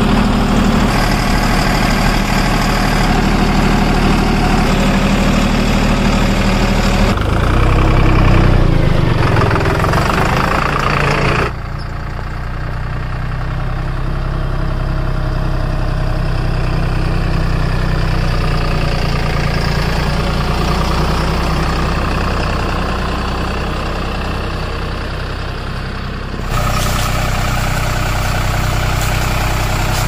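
Tractor engine idling steadily, its sound changing abruptly a few times.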